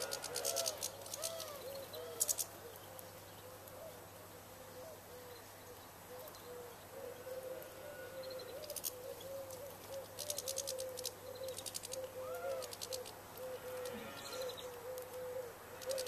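Garden birds calling around a feeder: a continuous low warbling of short rising-and-falling notes, broken a few times by bursts of rapid, very high chirping trills.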